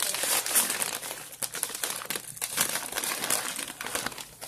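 Crinkling of a Chex Mix snack bag being handled, a dense irregular crackle throughout.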